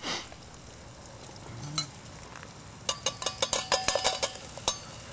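A metal utensil clinking and scraping against a tin can of sausage cooking on campfire coals: a single click, then a quick run of ringing clinks about three seconds in.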